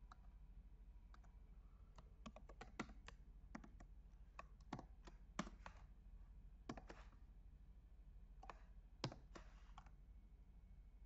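Faint, irregular keystrokes on a computer keyboard as a line of text is typed, with a few pauses between bursts of keys.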